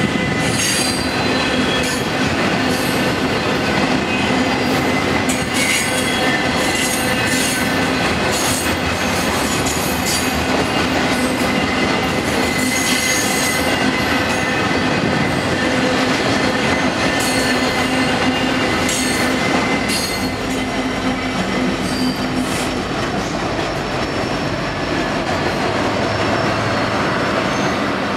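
Intermodal freight train's loaded container and trailer cars rolling steadily past, steel wheels squealing on the rails with clicks and clatter over the rail joints.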